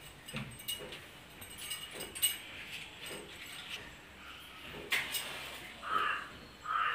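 Bangles clinking and a matchbox rattling in the hands, with light clicks throughout, then a match struck about five seconds in and two short scrapes or flares near the end as the flame is lit.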